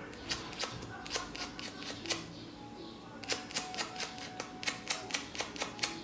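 Short, quick scraping strokes of a small piece of sandpaper rubbed against a light switch's metal contact, scouring off the dirt that kept the switch from conducting. A few scattered strokes come first, then a faster run of about four strokes a second in the second half.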